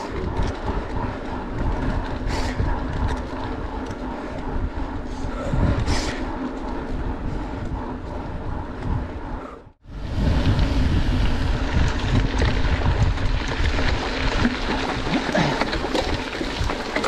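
Mountain bike in motion: a steady rumble of tyres rolling on asphalt. After a cut about ten seconds in, it becomes a louder, hissing rumble of tyres on a gravel road.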